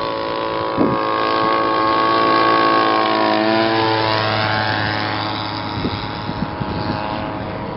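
A one-third-scale Fokker D.VII model biplane making a low fly-past, driven by a Zenoah G62 two-stroke petrol engine through a Mick Reeves reduction unit. The engine and propeller note grows louder, drops in pitch a little past three seconds in as the model goes by, then fades as it climbs away.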